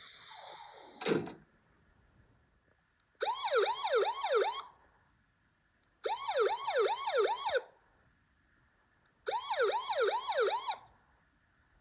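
Electronic emergency-vehicle siren sounded in three short bursts, each a fast string of falling yelps, about three or four a second. A single sharp click comes about a second in.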